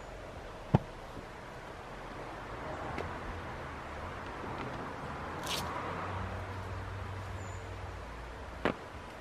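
Outdoor background with a low rumble that swells over several seconds and fades, like a vehicle passing. Three sharp clicks are spread through it, the last near the end.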